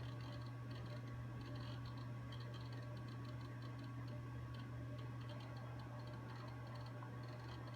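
Computer hard drive seeking with quiet, irregular ticking while the machine loads, over a steady low hum from the running computer.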